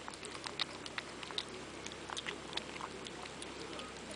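Two kittens eating chunks of wet cat food from a bowl, chewing and licking: a quick, irregular run of small wet clicks and smacks.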